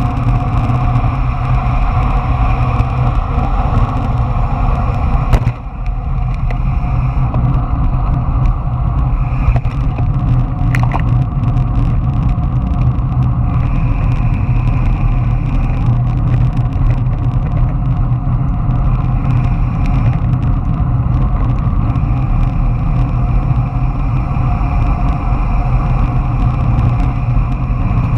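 Longboard wheels rolling fast down asphalt, a steady rumbling road roar mixed with wind on the microphone, with a sharp knock about five seconds in.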